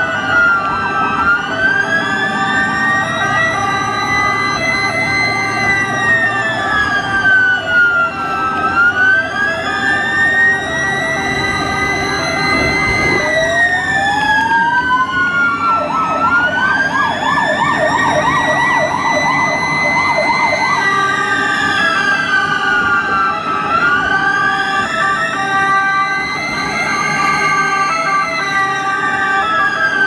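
Several ambulance sirens sounding at once: a slow wail that rises and falls about every seven seconds, over other sirens holding steadier tones. A fast warbling siren joins for about five seconds in the middle.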